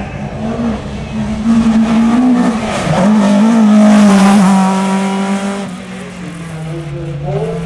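Hill-climb race car's engine revving hard as it accelerates up the course. Its pitch dips briefly about three seconds in. It is loudest as the car passes close by around four seconds in, then fades as it pulls away.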